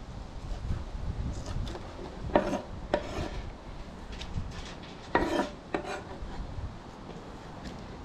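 Kitchen knife chopping and scraping scallions on a wooden cutting board, then the chopped scallions scraped into a glass bowl of sliced carrots and onion and mixed by hand: irregular scrapes and rubbing with scattered knocks of knife on board and bowl.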